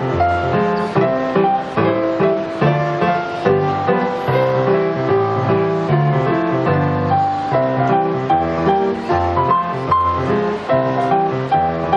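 Grand piano played four hands by two young players: a continuous stream of notes and chords over a bass line, without a break.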